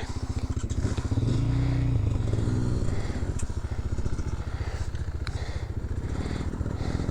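Dirt bike engine running at low speed on a trail, revving up briefly about a second in and again near three seconds. A few sharp clicks are also heard.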